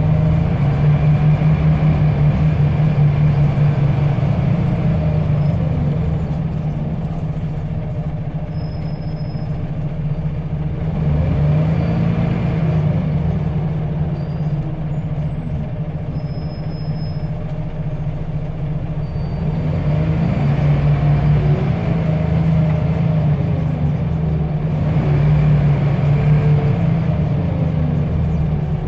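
Scania L94UB bus's 9-litre five-cylinder diesel engine running under way, heard from inside the bus. Its pitch rises and falls a few times as the bus pulls up through the gears and eases off.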